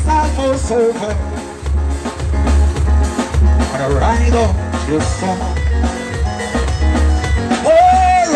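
Band music played loud: a singer's melody over a heavy, steady bass beat, with a long held sung note near the end.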